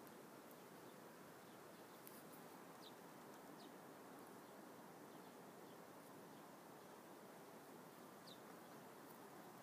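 Near silence: a low, steady background hiss with a few faint, short high chirps.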